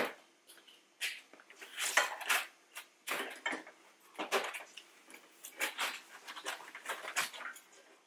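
Unpacking noise: white foam packing blocks scraping, rubbing and bumping as they are pulled off a diesel air heater's metal casing, with the cardboard box handled, in a string of short irregular scrapes and knocks.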